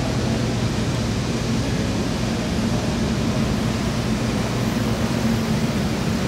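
A steady low hum over a constant, even rushing noise.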